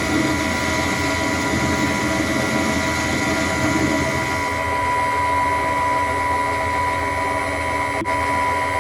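Myford Super 7 lathe running with a steady high whine, while the Multifix-mounted tool takes a cut for the first four and a half seconds or so. The cutting noise then stops and the lathe keeps running on its own.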